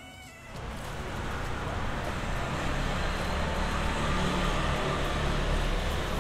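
Steady road-traffic noise with a low rumble. A music track cuts off just as it begins.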